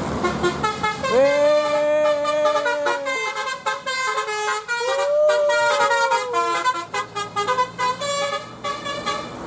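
Bus telolet basuri musical horn playing a tune of quick stepped notes. About a second in, a long swooping note rises and holds, and another rises about five seconds in before sliding down.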